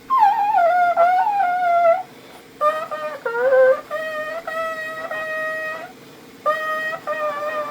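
3D-printed PETG rectangle trumpet with a metal mouthpiece playing a slow melody of held notes. The first note slides down in pitch at the start, and the notes come in three phrases split by short gaps.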